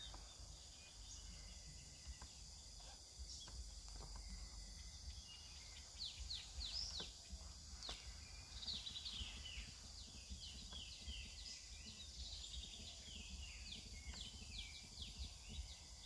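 Wild birds calling faintly in hillside forest: quick, high, downward-sweeping chirps, many in a row, starting about six seconds in. Underneath runs a steady faint high hiss and a low rumble.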